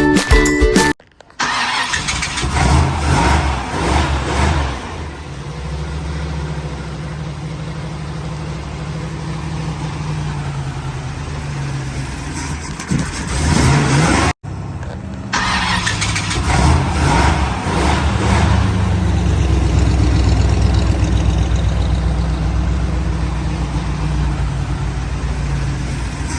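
Custom 1950 Ford woodie wagon's engine starting and then running at a steady idle with a low, even throb. It cuts out briefly about halfway and is heard idling again, a little louder, after.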